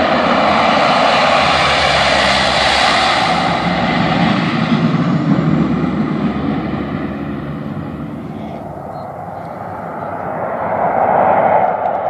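Engines and propellers of a twin-engine amphibious water-bombing plane flying low past, a loud steady drone that fades about two-thirds of the way through and swells again near the end as the plane comes back into range.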